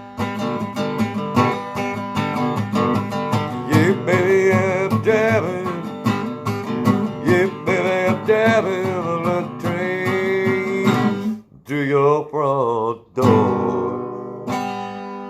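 Acoustic guitar strummed steadily under a wavering wordless melody line. The strumming breaks off a little past halfway, a few more wavering notes follow, and a final strummed chord rings out and fades.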